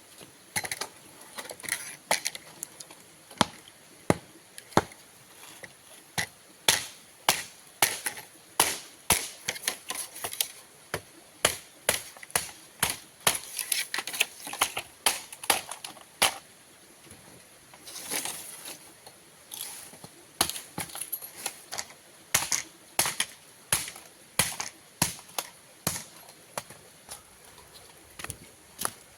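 A kitchen knife chopping spices on a cutting board: a string of sharp, irregular chops, one or two a second, with a short break about two-thirds of the way through.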